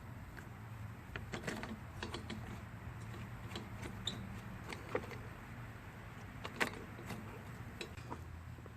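Scattered light clicks, taps and metallic clinks of hand tools and small parts being handled while a lawn mower carburetor is reassembled and refitted to the engine, over a faint steady low hum.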